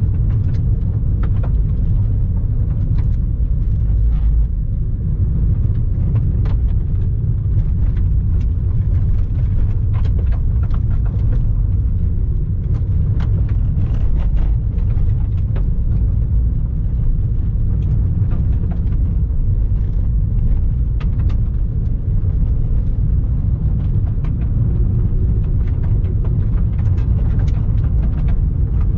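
Car driving along a gravel road: a steady low rumble of tyres and engine, with scattered sharp ticks of loose gravel.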